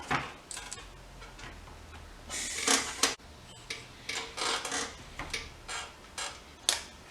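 Scattered light clicks and taps of small tools being handled on a workbench during hand soldering, with one louder, longer noise about two and a half seconds in.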